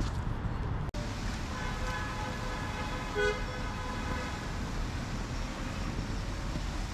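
Road traffic running as a steady low rumble, with a vehicle horn sounding a held tone for about three seconds and a shorter toot.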